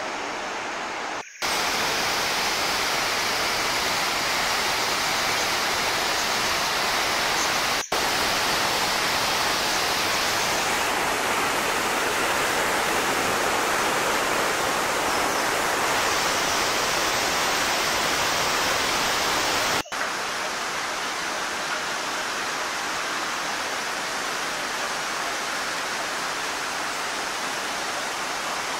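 Steady roar of the Iguazu waterfalls, a dense rushing of falling water, with three brief gaps where one shot cuts to the next: about a second in, near eight seconds and near twenty seconds.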